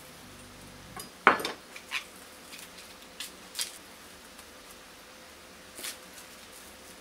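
Misono chef's knife on a wooden cutting board while cutting a Japanese long leek: a few sharp, separate knocks of the blade on the board, the loudest about a second in, with softer ones scattered after.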